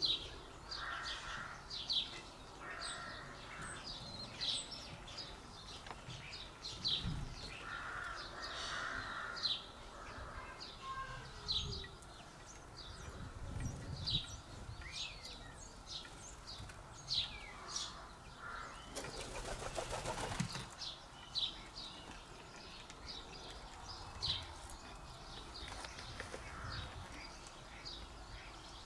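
Small garden birds chirping: many short, sharp high chirps repeating throughout, with a few lower, harsher calls in the first ten seconds. About two-thirds of the way through, a rushing noise lasts about a second and a half.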